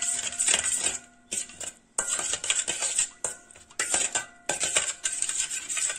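A steel spoon stirring a watery spice mix in a stainless steel bowl, scraping and clinking against the metal. The stirring comes in stretches with several short pauses.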